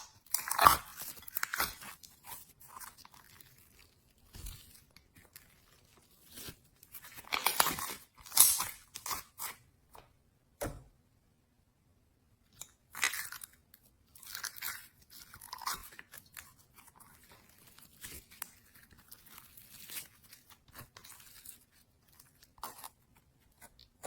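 Slime being squished and worked by hand, making irregular bursts of crackling and popping with short quiet pauses between.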